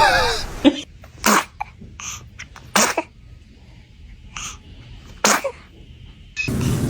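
A baby sneezing several times: short, sharp sneezes with pauses of about half a second to two seconds between them.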